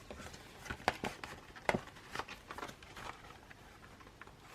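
Scattered light taps and clicks with faint rustling: an album's pages, photocards and inserts being handled.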